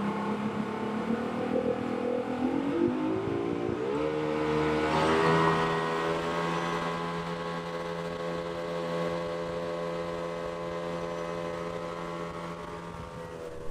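Jet boat engine running under way. Its pitch climbs for a couple of seconds as the boat speeds up, then holds steady at cruising speed.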